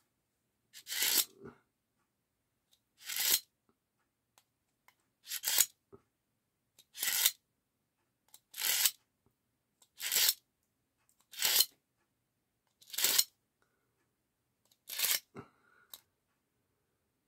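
Knife blade being pulled through the coarse carbide slot of a Smith's pocket sharpener: nine rasping scrapes, one every second and a half to two seconds. The carbide is shaving steel off a chipped edge.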